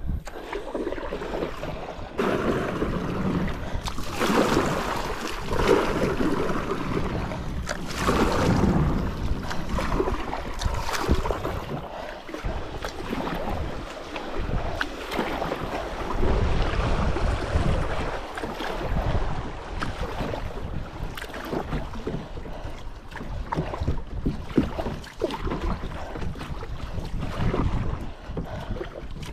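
Water splashing and sloshing around a kayak on a river, swelling every couple of seconds, with wind rumbling on the microphone.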